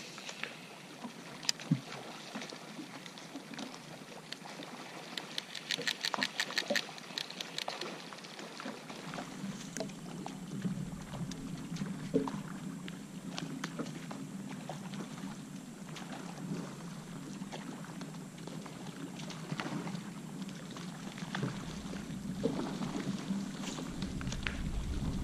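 Scattered clicks and light splashing on the water around a small fishing boat, with a quick run of rattling clicks about five to seven seconds in. A low steady hum joins about nine seconds in and continues.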